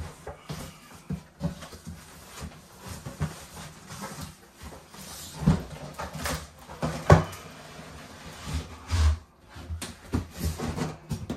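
Corrugated cardboard boxes scraping and rubbing against each other as a boxed RC truck is slid out of its shipping carton, with scattered knocks and thuds. The sharpest knock comes about seven seconds in, and a dull low thud about nine seconds in.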